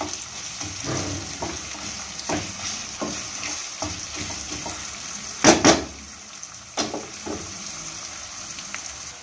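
Sliced onions sizzling steadily in hot oil in a kadai, stirred and scraped with a wooden spatula in the first few seconds. A sharp double knock comes a little past halfway, with a lighter knock about a second later.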